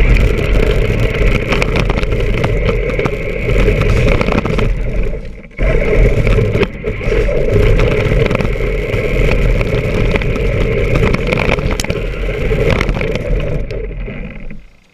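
Battery-powered 1:10-scale 4x4 RC truck driving hard, its electric motor running and its tyres working the ground, with a brief drop in the noise about five and a half seconds in.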